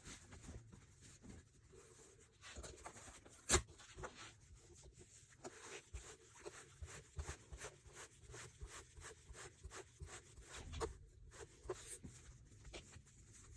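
Cotton quilting fabric rustling and rubbing as it is handled and rolled up, with many light, irregular taps and one sharper click about three and a half seconds in.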